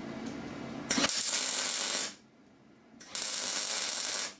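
MIG welder striking an arc for two short tack welds on steel: two crackling, hissing bursts of about a second each, starting and stopping abruptly, about a second apart.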